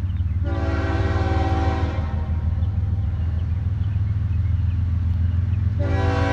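Approaching freight train's diesel locomotive sounding its air horn: one long blast starting about half a second in, and a second blast beginning near the end, over a steady low rumble.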